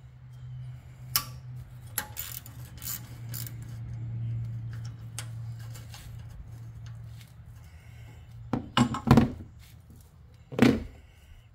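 A 10 mm wrench clicking and clinking on the exhaust-tip bolts of an ATV muffler as they are loosened, with a few louder metal knocks near the end. A steady low hum runs underneath.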